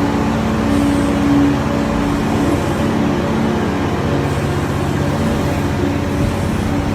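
Dump truck's diesel engine running steadily, a constant hum with a steady low drone.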